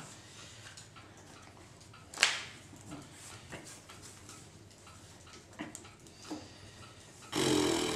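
Quiet room with soft clicks and taps of trading cards being handled on a table. One sharper short noise comes about two seconds in, and a breathy noise starts near the end.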